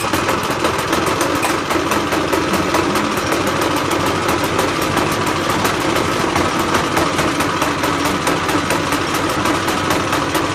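ATCO Ensign B17 cylinder mower's small petrol engine running steadily just after being pull-started.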